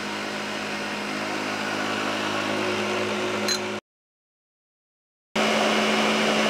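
Countertop blender motor running steadily while blending a thick egg-yolk batter. About two-thirds through it cuts to dead silence for a second and a half, then the blender is heard running again, louder.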